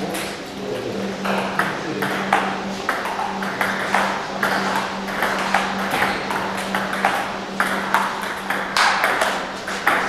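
Table tennis balls clicking off paddles and tables in quick, irregular succession, from rallies at more than one table, over a steady low hum.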